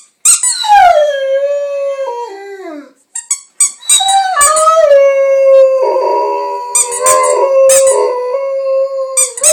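Rhodesian ridgeback howling along with a squeaky dog toy: short, sharp squeaks of the toy set off two long howls. The first howl slides down in pitch and breaks off about three seconds in. The second holds one steady pitch for about five seconds while the toy squeaks again over it.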